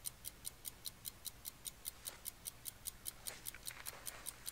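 Faint, very regular ticking, about five clicks a second, with a few faint murmured voices behind it.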